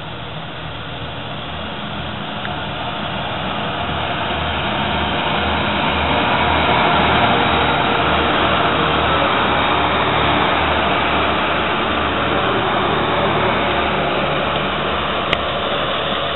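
Class 175 diesel multiple unit passing close by, its underfloor diesel engines running. The sound grows louder over the first several seconds as the train comes alongside, then holds steady. A single sharp click comes near the end.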